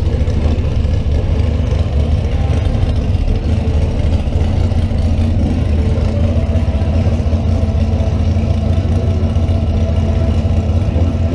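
Drag cars' engines idling in the staging lanes, a steady low rumble.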